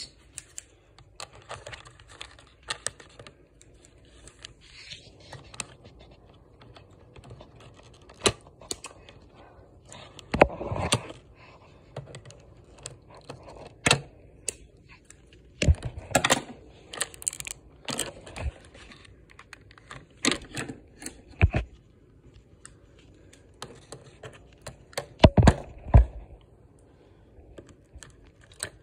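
Irregular clicks, snips and taps of scissors cutting the plastic ties that hold a toy dinosaur figure to its blister pack, with the plastic and card packaging rustling and knocking in between. There are a few louder clusters of knocks, the loudest near the end.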